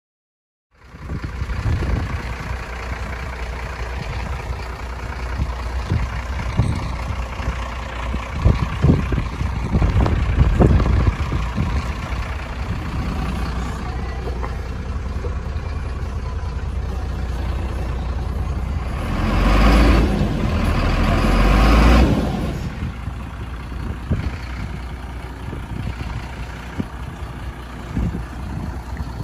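Mercedes-Benz Axor lorry being driven: steady diesel engine and road rumble, with a few knocks about ten seconds in and a louder surge lasting a few seconds about twenty seconds in.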